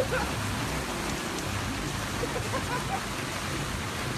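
Steady rushing noise of flowing floodwater, with a brief knock right at the start and faint voices now and then.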